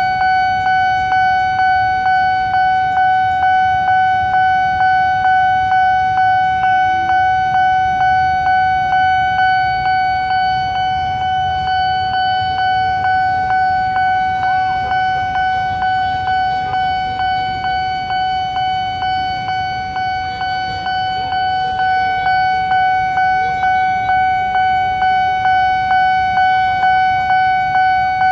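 Japanese Nippon Signal electronic railroad-crossing alarm ringing a rapid, evenly repeating bell-like ding, each strike fading before the next: the warning that the crossing is closed for an approaching train. Idling traffic rumbles low underneath.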